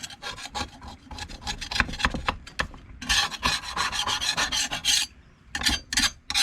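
Hand scraper working stripper-softened, bubbled paint off a WWII-era tool in quick repeated strokes, with a short pause about five seconds in before a few more strokes.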